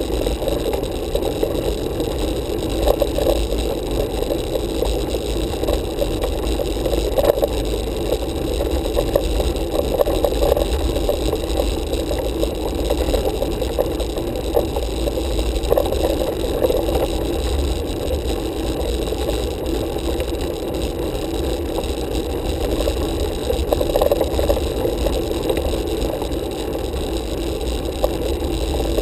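Steady muffled rumble and light rattle of a road bike rolling uphill on tarmac, picked up through a handlebar-mounted camera.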